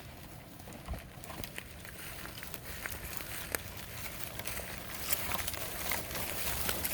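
Orbeez water beads being flung out and scattering, a patter of many small clicks over a light hiss that grows busier and louder toward the end.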